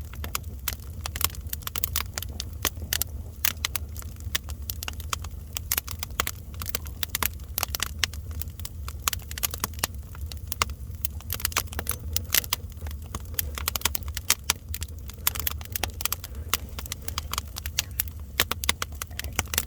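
Wood fire crackling: dense, irregular sharp pops and snaps over a steady low rumble.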